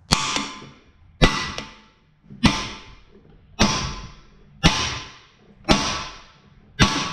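Hammer blows on a cam bearing installer tool, driving a camshaft bearing into the cast-iron LQ9 V8 block: seven hard strikes about a second apart, each with a metallic ring. The bearing is a tight fit that looks too big for its bore.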